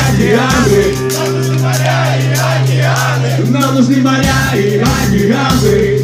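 Live rock band playing loud with a singer, electric guitar, drums and accordion.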